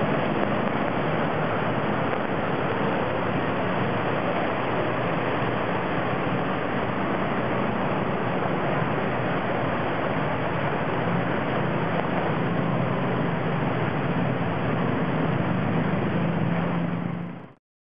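Traffic driving through a flooded street: a steady wash of water and tyre spray with engine hum underneath, the hum a little stronger in the last few seconds. The sound cuts off abruptly near the end.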